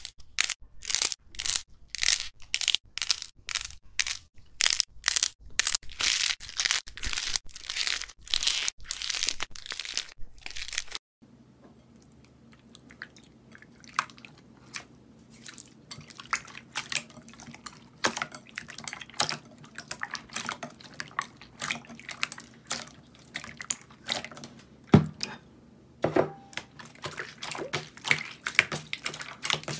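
Hands squeezing and pressing balls of foam-clay slime, with a crisp crackling crunch about twice a second. About eleven seconds in, the sound cuts to quieter, scattered sticky clicks and crackles as pink clear slime is kneaded and stretched.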